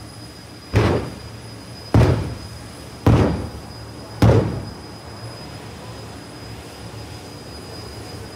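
Four loud bangs, about a second apart, each dying away over half a second, over a low steady rumble; after the last one only the rumble goes on.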